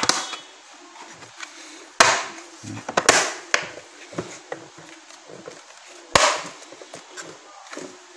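Hard plastic body parts of a vintage Thai-made electric fan knocking and clacking as they are handled and fitted together onto their snap-in clips. The sharpest knocks come at the start and about two, three and six seconds in, with light clicks between.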